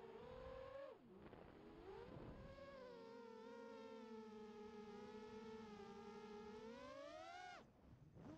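Faint whine of an FPV quadcopter's brushless motors heard through its onboard camera, the pitch gliding up and down with the throttle. The whine drops away briefly about a second in and again near the end.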